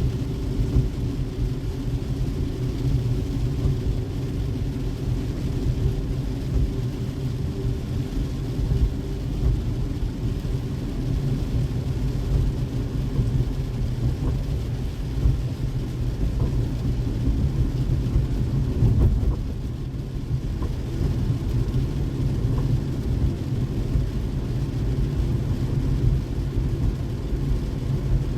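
A car driving on rain-wet roads: a steady low rumble of engine and tyres, swelling briefly a little past the middle.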